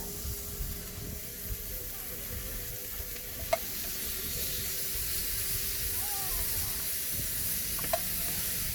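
Meat sizzling in a hot pan, the hiss growing gradually louder, with two short sharp clicks, one about three and a half seconds in and one near the end.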